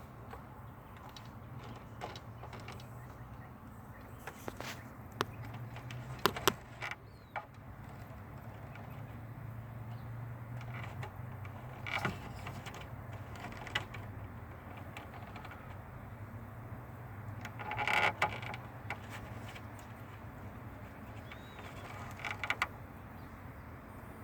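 Scattered irregular clicks, knocks and rattles from handling the turn signal switch and its wiring connector, the loudest cluster about eighteen seconds in, over a low steady hum.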